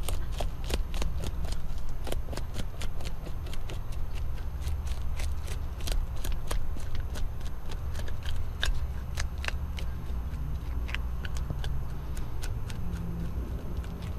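A fork scraping the scales off a small yellowtail snapper on a cutting board: a quick, irregular run of scratchy clicks, several a second, over a low steady rumble.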